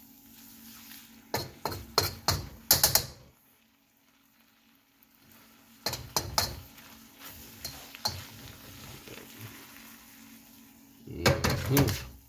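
Spatula scraping and clattering against a wok in quick bursts while noodles are stir-fried, over a faint sizzle. The loudest scrapes come near the end, and there is a quiet pause of a couple of seconds about three seconds in.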